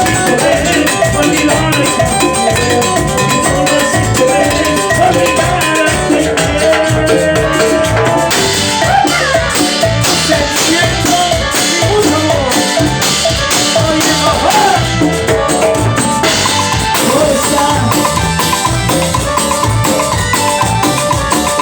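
Instrumental passage of Ecuadorian chichera dance music, a steady drum beat driving under a lead melody, with no singing.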